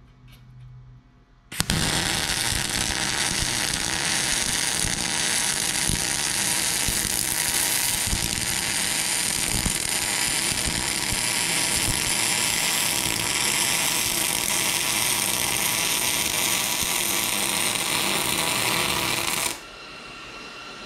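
MIG welder arc running a weld on a steel VW Mk2 GTI rear axle beam: an even crackling hiss that starts suddenly about a second and a half in, holds steady for about eighteen seconds and stops shortly before the end.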